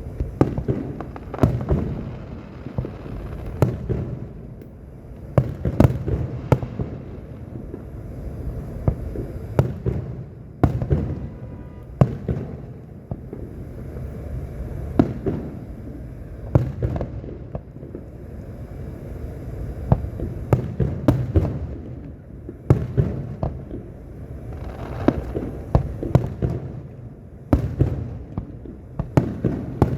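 Fireworks display: aerial shells bursting in a steady series of loud bangs, some in quick clusters, over a continuous low rumble of booms echoing.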